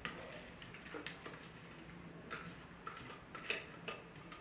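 A utensil scraping and tapping against a plastic food-processor bowl, scooping chopped cranberries out: faint, scattered clicks and scrapes.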